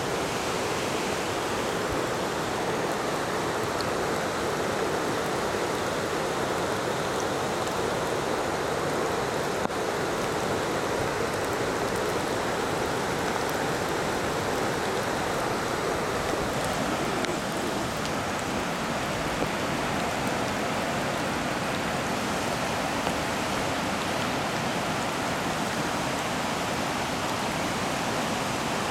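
A small creek in flash flood after heavy downpours, its fast-moving brown floodwater rushing in a steady, unbroken wash of noise.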